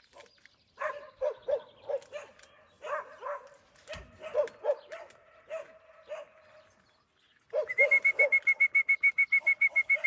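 Dogs barking: a run of short, irregularly spaced barks. About three-quarters of the way through, a fast, even, high-pitched trill of roughly ten pulses a second starts and is the loudest sound.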